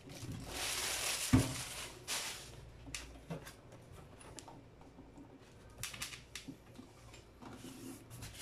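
Clear plastic packaging bag rustling as it is handled, with one dull thump about a second in. Then scattered light knocks and clicks as the metal inverter casings are shifted on the table.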